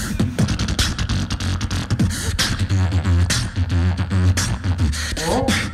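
Competitive beatboxing: a steady low buzzing bass line under rapid snare and hi-hat hits, with rising pitched sweeps near the end.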